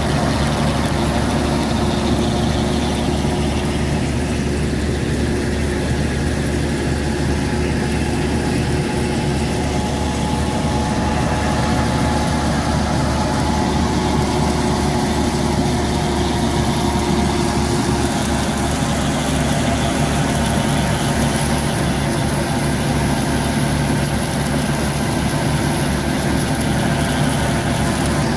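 Tractor diesel engine running steadily under load while it drives a tractor-drawn wheat straw reaper that cuts and chops stubble into straw. The engine and machinery make one steady, unchanging drone.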